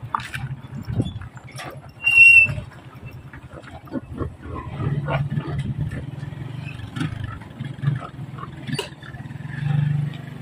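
Small motorcycle engine running at low speed with live pigs in its sidecar cage, the pigs grunting, and one short, loud, high squeal about two seconds in.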